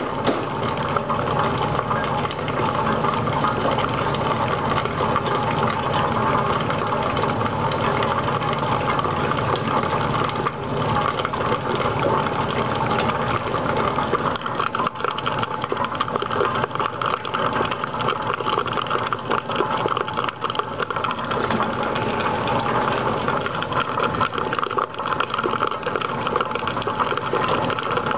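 Fetco commercial coffee brewer running a brew cycle: hot water running steadily from the spray head into the brew basket.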